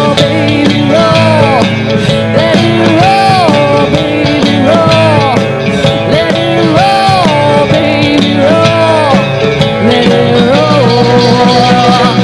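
Country rock band playing live: a woman singing lead over electric guitar, bass guitar, drums and keyboard.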